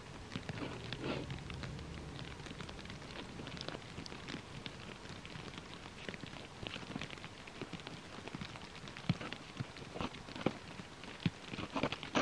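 Snow shovel scraping and scooping snow: an irregular run of crunching scrapes, with several sharper knocks of the shovel in the last few seconds.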